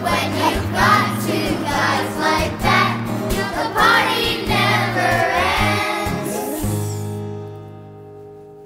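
Background music: a song with singing voices over a steady accompaniment, ending in a held final chord that fades out from about seven seconds in.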